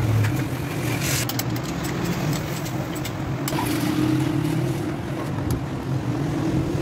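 An engine running steadily at a constant speed.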